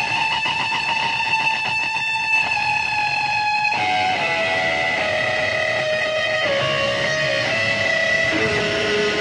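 Electric guitar playing a slow lead melody in long sustained notes, moving to lower notes about four seconds in and again near the end.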